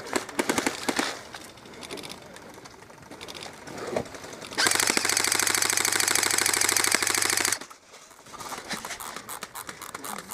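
Electric airsoft rifle, an Airsoft GI G4-A5 Dune Knight carbine, firing on full auto. There is a short rattle of rapid shots right at the start, then an unbroken burst of about three seconds from about halfway in.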